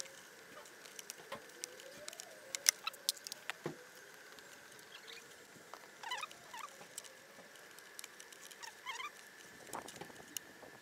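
Small clicks, taps and rustling from hands handling wires and the plastic front cover of an electric scooter, with a sharp click about two and a half seconds in.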